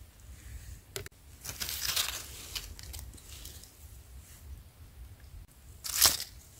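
Dry fallen leaves rustling and crackling as a hand moves through the leaf litter. The loudest crackle comes about six seconds in, as the hand reaches down into the leaves.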